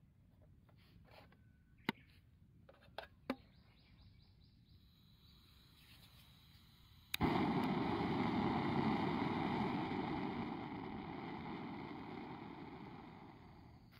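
A couple of light clicks as the aluminium mess tin is set in place, then about seven seconds in a PRIMUS remote-canister gas stove lights with a sharp click and burns with a steady hiss under the mess tin, getting quieter over the last few seconds.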